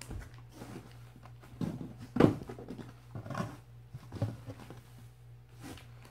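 Groceries being handled in a cardboard box: plastic packets rustling and items shifting, with a sharper knock about two seconds in. A steady low hum runs underneath.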